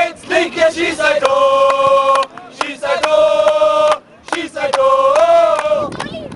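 A small group of men chanting a song together in unison, holding long notes in three drawn-out phrases, with hand claps in time with the chant.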